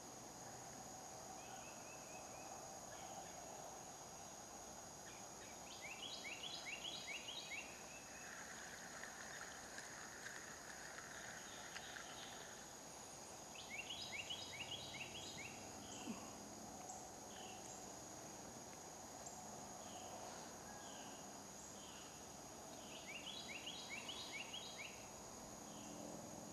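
Faint outdoor morning ambience: a songbird sings a short phrase of quick, down-slurred notes three times, about eight to nine seconds apart, over a steady high insect drone.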